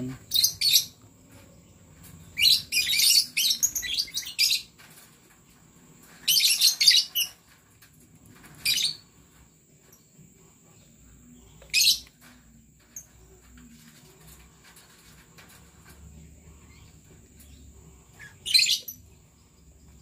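A flock of lovebirds giving shrill, high-pitched chirps in short bursts, with a longer run of chirping about two seconds in and quieter gaps between.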